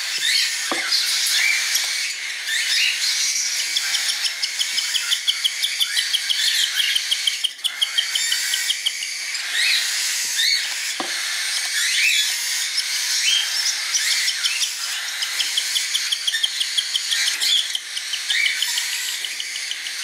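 Cockatiel chick giving food-begging calls while being syringe-fed: runs of rapid, high repeated chirps with short rising calls between them.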